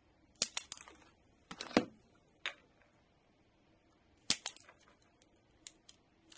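Hand wire stripper working on the thin wires of a power-supply lead: several bursts of sharp clicks and snaps, the strongest about half a second, a second and a half and four seconds in, then a couple of light ticks near the end.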